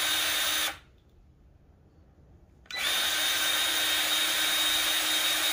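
Milwaukee M18 Fuel 2646-20 cordless grease gun running with a steady high whine, stopping for about two seconds and then starting again and running on. The new pump is priming, working air out of the system before grease comes through.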